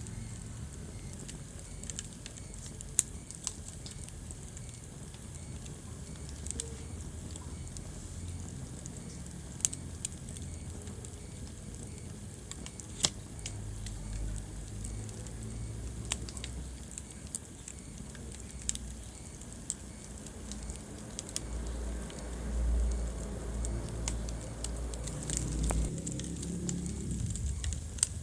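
Wood fire burning in a fireplace, crackling with scattered sharp pops over a low steady rumble of the flames. The rumble swells for a few seconds near the end.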